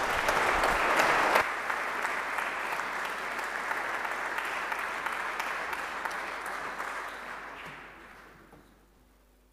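Audience applauding, loudest in the first second and a half, then steady, dying away over the last two seconds.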